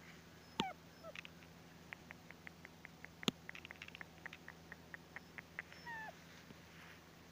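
Puppy whimpering, a few short whines that fall in pitch: one about half a second in, another a moment later, and one near the end. Between them comes a run of light ticks and crackles.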